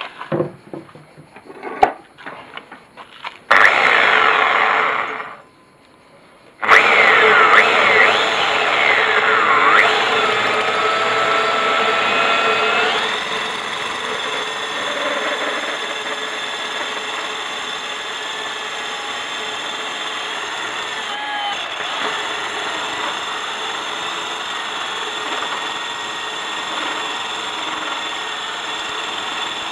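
DeWalt DW580EK diamond core drill boring dry into stone with a core bit. A few knocks come first, then a short burst of the motor about three seconds in. From about seven seconds in the drill runs continuously, its pitch wavering as the bit bites into the rock, and after about thirteen seconds it settles into a steady grinding whine.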